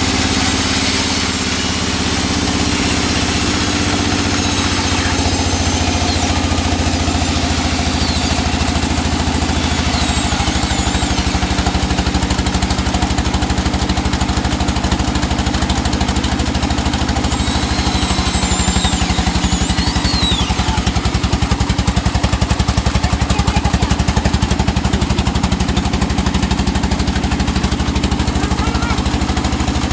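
An engine running steadily at an even, fairly low speed, its pitch shifting a little a few times, with a few faint high chirps above it; likely the engine driving a sawmill for cutting teak logs.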